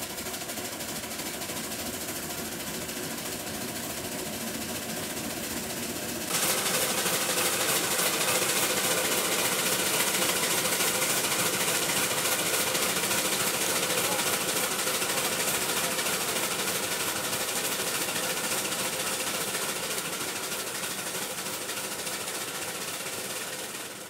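Reeves 13HP steam traction engine running under steam: a steady, fast mechanical clatter from its engine and valve gear, mixed with a hiss of steam. It gets louder about six seconds in.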